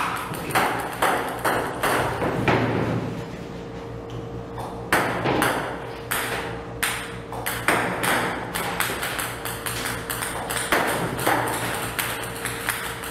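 Table tennis balls fired from a table tennis robot, bouncing on the table one after another: sharp clicks about one or two a second.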